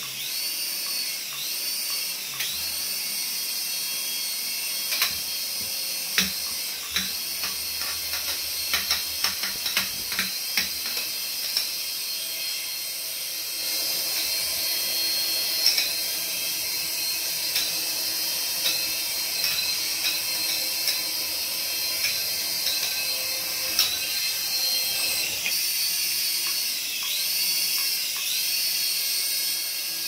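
Small toy coaxial RC helicopter's electric motors whining, the pitch rising and falling as the throttle changes, with scattered clicks and knocks as it bumps the walls and floor, most of them in the first half.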